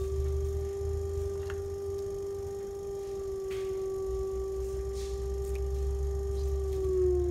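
Electric potter's wheel motor whining at a steady pitch while clay is thrown on the spinning wheel head, with a low rumble beneath. The pitch sags slightly near the end.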